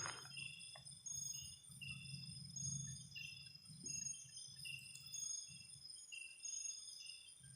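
Insect chorus: steady high-pitched trilling of crickets, with short chirps repeating about once a second, over a low, uneven rumble.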